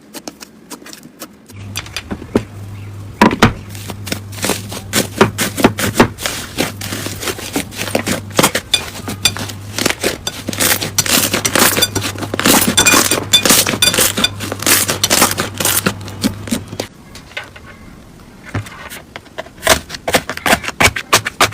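Slime being worked, with dense crackling and popping clicks. They thin out about three-quarters of the way through and pick up again near the end. A low steady hum runs under the crackling for most of it.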